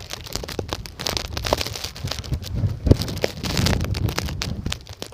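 Blizzard wind gusting hard against the phone's microphone: a rumble that swells and drops, with many sharp crackling clicks, the sharpest about three seconds in.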